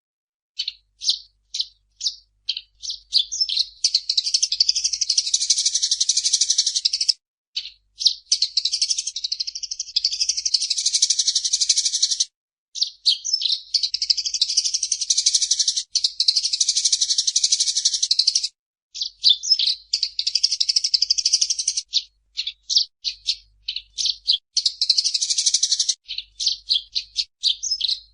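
Eurasian tree sparrow singing in a fast, chattering song. It opens with a few separate chirps, then runs into dense bouts of rapid chatter a few seconds long, broken by short pauses.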